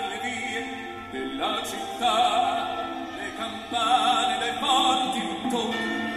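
A man singing in an operatic style into a microphone over accompanying music, with several long held notes sung with a wide vibrato.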